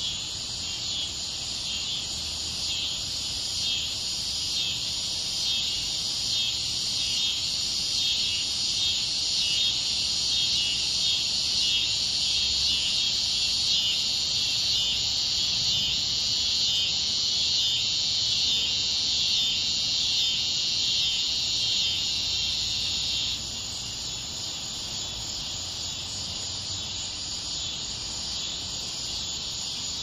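Dense chorus of cicadas, katydids and crickets, a steady high-pitched buzzing and trilling. A louder pulsing layer swells over it and then cuts off abruptly about three-quarters of the way through, leaving the quieter steady trill.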